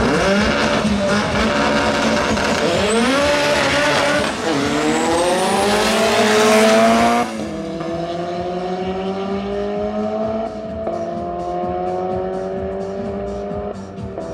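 A Yugo Turbo and an Opel Calibra Turbo launching off a drag-strip start line, their engines revving up through the gears, with the pitch dropping back at each upshift. About seven seconds in the sound falls off abruptly. The engines are then heard more distantly, still climbing through the gears as the cars run down the strip.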